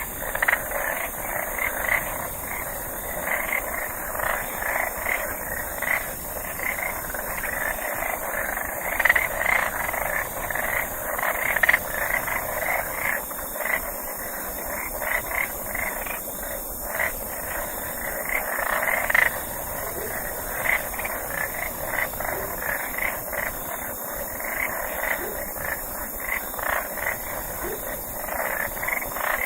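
Frog chorus: many frogs calling over one another in short repeated croaks, with a steady high hiss behind them.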